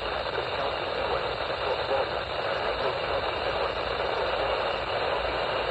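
Steady static hiss from a NOAA Weather Radio receiver, with its sound cut off sharply above the upper midrange.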